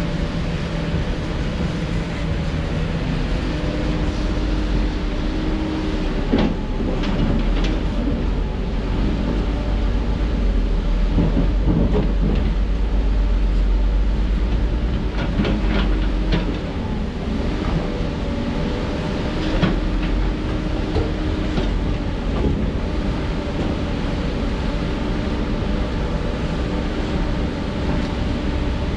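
Heavy diesel construction machinery, most likely an excavator, running steadily under load with scattered metallic clanks and knocks of steel against rock. The low rumble is heavier for a stretch in the first half.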